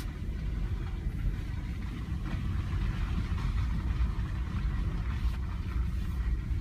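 Steady low rumble of a 2014 Ford Edge driving slowly on a muddy dirt track, heard from inside the cabin.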